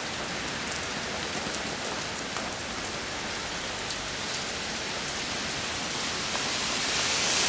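Heavy downpour: a steady hiss of rain with scattered drop ticks, growing louder near the end.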